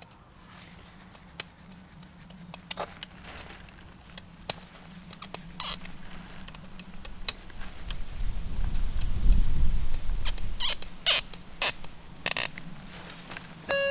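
Hand screwdriver working screws into the end of a garden-railway track to fix a buffer stop: faint scraping and ticking, then a louder low handling rumble from about eight seconds in with four sharp clicks near the end.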